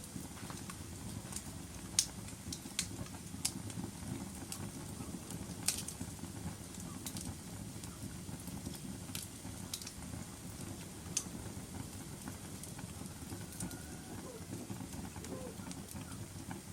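Wood fire burning in a fireplace: a steady low rumble of flames with irregular sharp crackles and pops, the loudest about two seconds in and again near six seconds.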